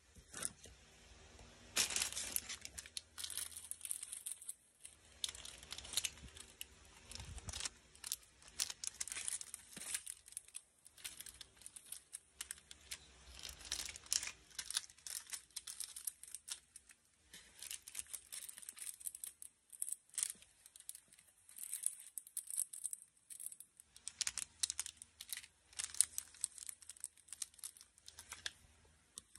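Plastic packaging crinkling and rustling in irregular crackles as packets of press-on nails are handled and laid down.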